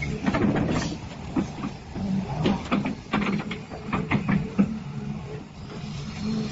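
Hyundai HX220L excavator's diesel engine running with a steady hum, with irregular metallic knocks and clanks from the machine.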